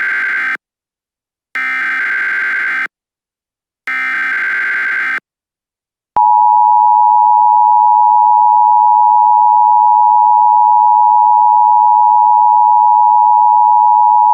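Emergency Alert System alert tones: three short bursts of screechy data tones (the SAME header) about two seconds apart, the first already under way. About six seconds in, the loud, steady two-tone attention signal begins and holds without a break.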